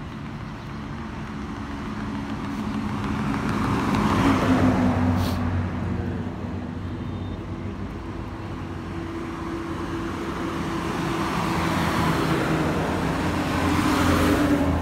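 Highway traffic: two heavy vehicles pass close by with their engines running, each swelling and then fading, the first about four to five seconds in and a truck near the end.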